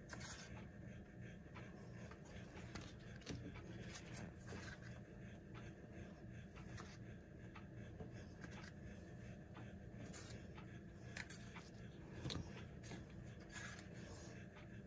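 Faint scattered scrapes and light taps from hand work with small cups, a stir stick and wet epoxy on the panel, over a low steady hum. A few scrapes stand out, about 3 s in and again around 11 to 13 s in.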